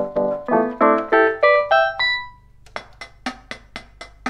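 Yamaha PSS-170 portable keyboard, powered up and working on its replaced DC power jack, playing a quick rising run of about seven notes, the last ringing out. Then a steady clicky percussion beat starts from its built-in rhythm, about four strokes a second with a stronger one each second.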